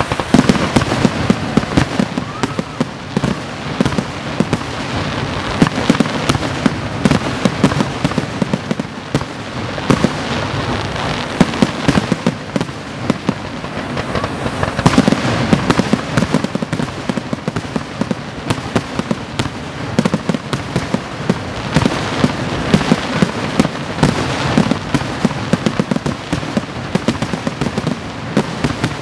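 Aerial fireworks display: shells bursting in a dense barrage, many sharp bangs in quick succession over a continuous rumble.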